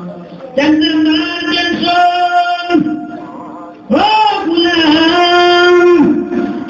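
A man's voice singing in a chanted melody, amplified: two long drawn-out phrases of held notes, the second opening with a wavering run.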